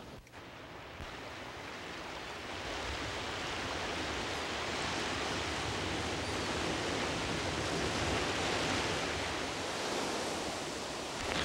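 Sea surf washing over rocks: a steady rush of waves that builds gradually, with a brief louder surge near the end.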